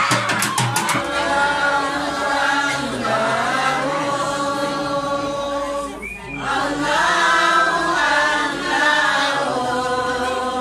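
Hand drums beating quickly, about five strokes a second, stop about a second in. Then a group of men chant together without drums, with a brief break a little past halfway.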